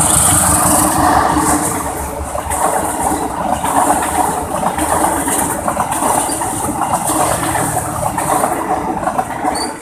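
Indonesian passenger train passing over a level crossing: the CC 201 diesel-electric locomotive goes by, then its coaches rumble and clatter over the rails in a continuous loud rush.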